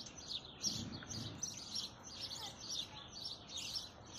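Small birds chirping, a steady stream of short, high chirps several times a second.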